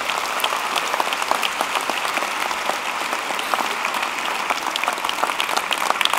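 Large audience applauding steadily: a dense, even clapping of many hands.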